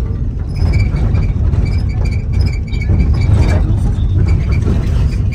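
Loud low rumble of a city bus in motion, heard from inside, with frequent rattles and knocks from the shaking body over a rough road.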